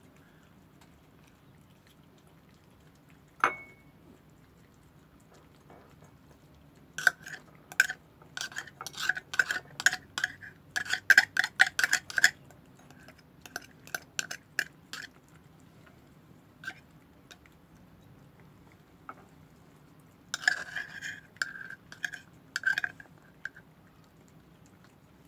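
Cats eating from ceramic and glass food bowls on a tile floor, their tongues and teeth knocking the bowls into quick runs of ringing clinks. A single sharp clink comes about three seconds in, then bursts of rapid clinks from about seven to fifteen seconds in and again around twenty-one seconds.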